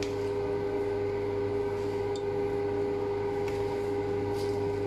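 Steady machine hum with several constant tones, with a few faint scrapes of a spatula folding melted butter into batter in a stainless steel bowl.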